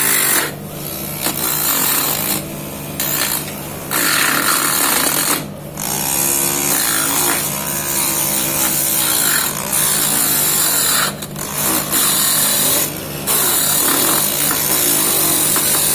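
Homemade mini lathe's 12-volt DC motor running steadily while a hand tool scrapes and shapes the spinning wood, in repeated passes with short breaks between them.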